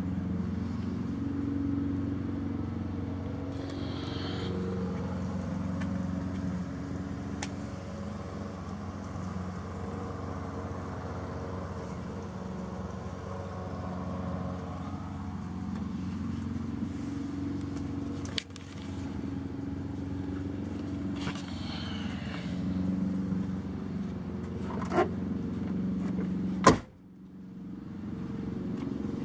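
An engine running steadily at a low, even pitch that swells and eases a little. A few sharp clicks sound, the loudest near the end, after which the sound briefly drops out.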